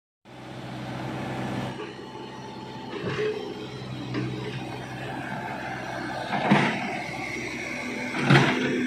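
A backhoe loader's diesel engine running steadily, with several louder clanks or knocks at uneven intervals.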